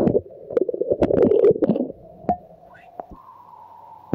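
Muffled water sloshing and knocking, heard through a smartphone's microphone while the phone is submerged in a measuring cup of water. About two seconds in it drops to a quieter, steady muffled hum, and there is a sharp click at the end.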